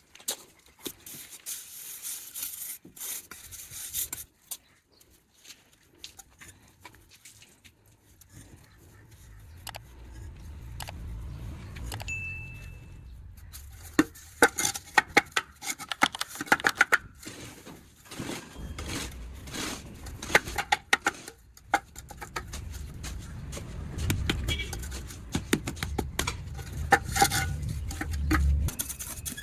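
Construction hand work: repeated sharp metallic clinks, knocks and scraping of tools and materials, busiest in the second half, over a low rumble at times.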